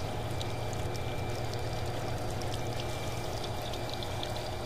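Water washing steadily over the riffles of a gold concentrating table, with a steady low machine hum underneath.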